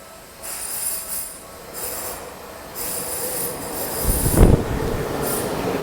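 High-pitched metallic screeching in about five on-and-off bursts, then a heavy low thump about four and a half seconds in, with a rumble continuing under it.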